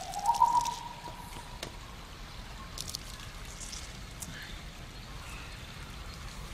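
Water trickling and dripping as a soaked cloth garment is twisted and wrung out by hand. A short rising tone fades out in the first second.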